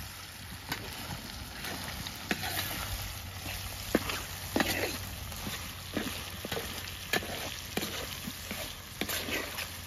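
Chicken pieces sizzling in a large black pan over a wood fire, with a spoon stirring them and knocking against the pan in irregular sharp clicks.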